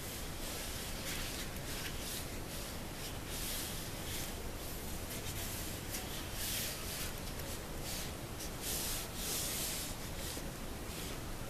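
Hands rubbing and sliding a sheet of EVA craft foam, a dry scuffing in repeated strokes.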